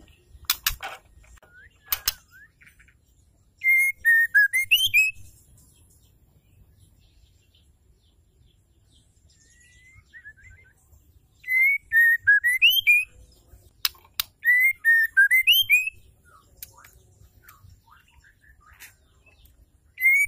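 Female white-rumped shama singing bursts of clear, looping whistled notes with high twittering above them: three phrases of one to two seconds each, with a short one at the end. A few sharp clicks fall between the phrases.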